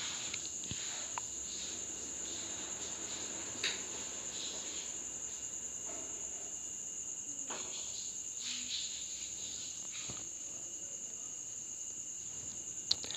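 Crickets trilling steadily at a high pitch in the background, with a few faint clicks and rustles.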